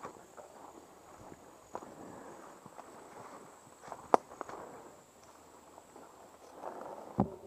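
Footsteps of a person walking through grass and brush, with irregular rustling and soft snaps underfoot. A single sharp crack stands out about four seconds in.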